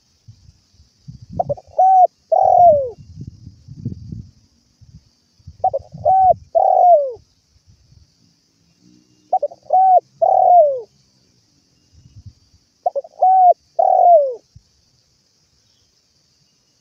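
Spotted dove cooing: four phrases about every three and a half seconds, each two short coos and a longer coo that falls in pitch. Low rumbling sits under the first two phrases.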